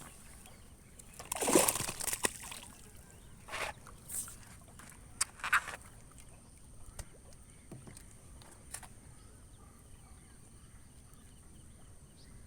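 Water splashing and sloshing in several short bursts as a hooked snakehead thrashes while being brought in, the loudest a little over a second in; after about six seconds only faint ticks remain.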